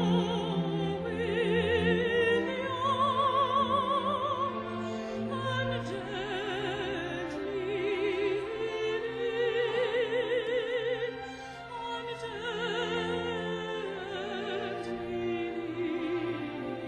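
Classical vocal music: voices singing with strong vibrato over a string orchestra accompaniment, continuous and legato.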